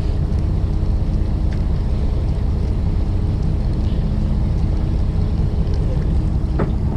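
Fishing boat's engine running, a steady low hum.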